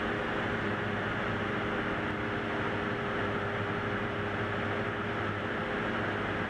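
Single-engine light aircraft's propeller engine droning steadily in cruise, heard in the cockpit.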